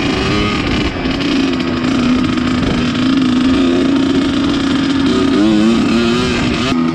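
1997 Kawasaki KX100's two-stroke engine, fitted with a Pro Circuit pipe and silencer, running under the rider at a fairly steady part throttle, with a few quick rises and falls in pitch near the end as the throttle is worked.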